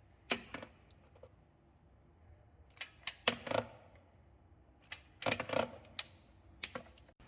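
Clicks and metallic clinks of a torque wrench and socket, in several short clusters, as spark plugs are tightened to 18 N·m.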